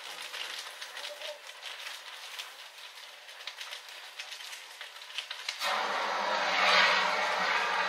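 A burning wooden shed crackling with many sharp snaps and pops. About five and a half seconds in, a handheld fire extinguisher starts discharging with a sudden loud, steady hiss that carries on.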